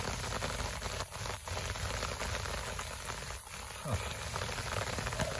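Steady rain falling on leaves and on wet, puddled ground, an even hiss with a low rumble under it. A brief low falling sound comes about four seconds in.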